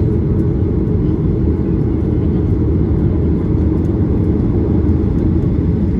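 Steady rumble of a Ryanair Boeing 737's jet engines and airflow, heard inside the passenger cabin. The noise is loud and even, with most of its weight in the low end.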